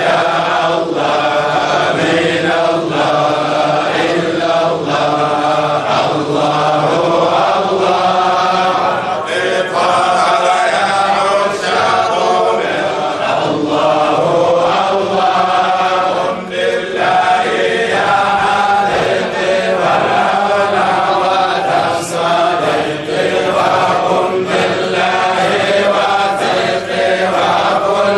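Voices chanting Arabic Islamic devotional verses (dhikr) in a continuous melody.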